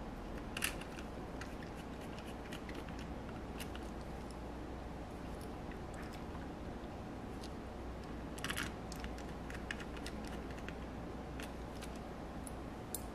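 Scattered small clicks and taps of tiny screws and a precision screwdriver as a circuit board is screwed down into a plastic pocket-computer case. The sharpest click comes just under a second in, with a brief cluster about eight and a half seconds in, over a faint steady background hum.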